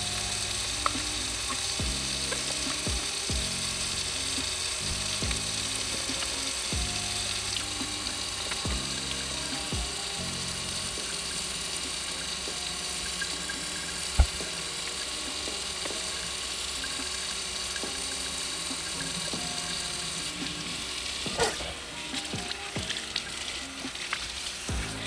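Kitchen faucet running steadily, its stream splashing onto a clear plastic vacuum bin and into the sink as the bin is rinsed. The water cuts off about four-fifths of the way through, followed by a few knocks and clatters as the bin and the pull-down sprayer are handled.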